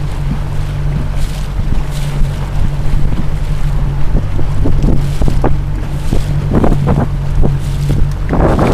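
Wind buffeting the microphone over the steady low hum of a motorboat engine, with short knocks and slaps of water against the hull from about halfway on and a louder rush of wind near the end.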